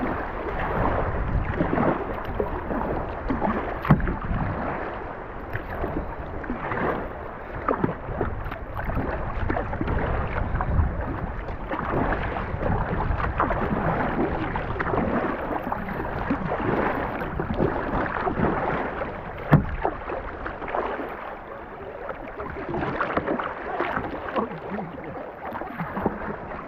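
Kayak on the water: paddle strokes and water splashing against the hull, with a couple of sharp knocks, one about four seconds in and one a little before twenty seconds. Wind rumbles on the microphone underneath.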